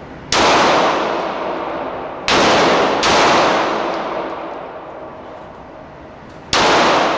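Handgun fired four times in an indoor range: sharp shots about two seconds, then under a second, then three and a half seconds apart, each followed by a long echoing decay.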